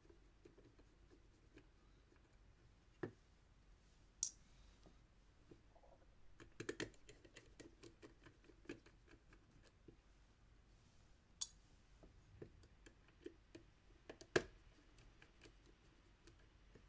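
Faint clicks and scratches of a small screwdriver turning screws in the top of a Canon DSLR body, with a few sharper ticks scattered among them.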